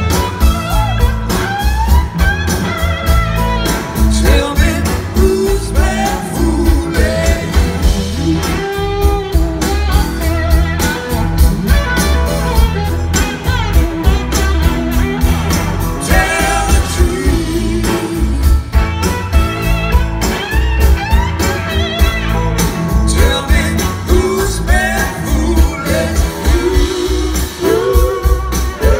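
Live blues-rock band playing loud: electric guitars, drum kit, bass and singing, heard from the audience.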